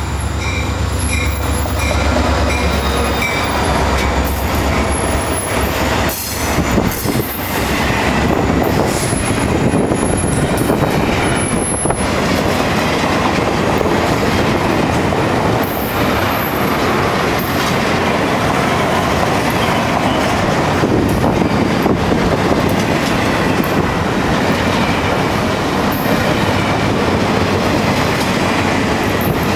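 Florida East Coast Railway diesel locomotives pass close with a low engine drone in the first few seconds. A long train of double-stack container cars follows, rolling past steadily with wheel-on-rail noise and now and then a high wheel squeal.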